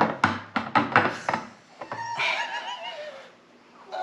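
Laughter: a quick run of short laughing bursts, then a higher, wavering laugh about two seconds in.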